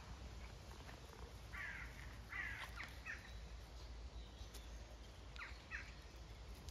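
A crow cawing: about four short, harsh caws in quick succession, then two more a couple of seconds later.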